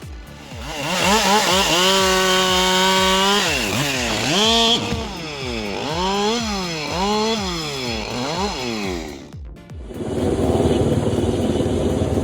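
Husqvarna 572 XP two-stroke chainsaw (70.6 cc) held at high revs, then revved up and down over and over. About nine seconds in, it gives way to a rougher, noisier drone.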